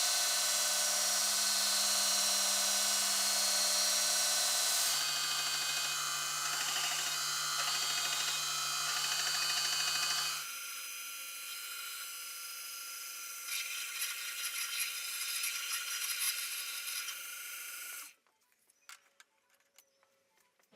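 An electric power tool running with a steady hum. Its pitch drops suddenly about five seconds in, and it gets quieter after about ten seconds, with scraping and rubbing against the work. It cuts off suddenly near the end, leaving a few faint clicks.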